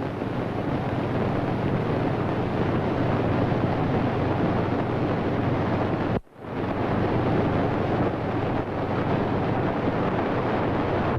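Steady rushing noise, broken by a brief dropout about six seconds in.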